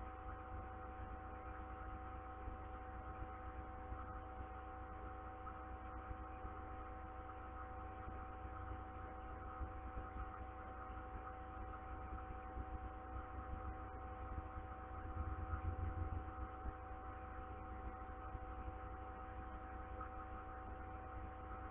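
Steady low electrical hum with a few fixed tones over a low rumble, swelling slightly about fifteen seconds in.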